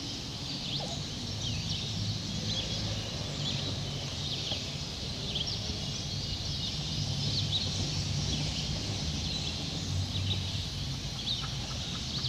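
Songbirds chirping, many short high calls scattered throughout, over a steady outdoor background with a low rumble underneath.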